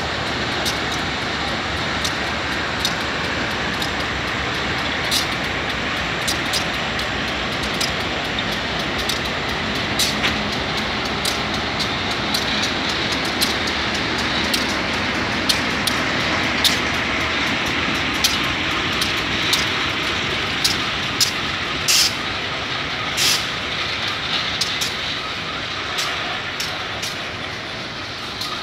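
Freight train passing close by: three MRS diesel locomotives going past, then a long string of empty bauxite gondola wagons rolling along the rails. A steady rumble with frequent sharp clicks and clanks from the moving train, the loudest cluster about two-thirds of the way through.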